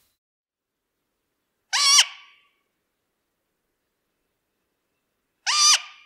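Juvenile great grey owl giving two short shrill calls about four seconds apart, each under half a second: the food-begging call of a young owl.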